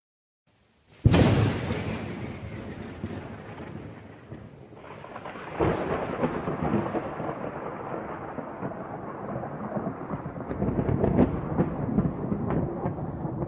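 Thunder-like rumbling: a sudden loud crash about a second in that rolls away into a deep rumble, then a second crash about halfway through that rumbles on with small crackles.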